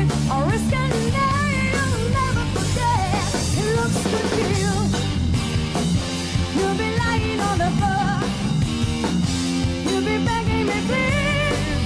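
Rock music with a steady drum beat and a pitched lead line.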